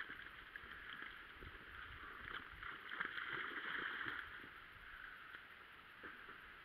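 A dog wading off the bank into pond water and swimming out, splashing and churning the water, loudest about two to four seconds in.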